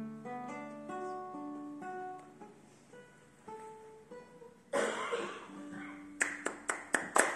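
Acoustic guitar playing the closing notes of a song, a plucked line of single notes that fades away. About two-thirds through comes a sudden rush of noise, then hand claps begin and grow louder near the end.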